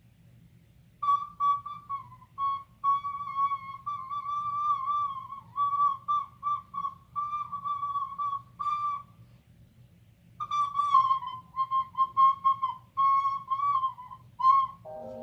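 Recorder playing one high, shrill note over and over in short toots, its pitch wavering slightly, with a pause in the middle. Just before the end a different steady chord of music starts.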